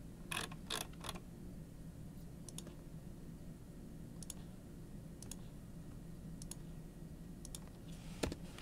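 Computer mouse clicking: sharp single and double clicks spaced about a second apart, over a low steady hum.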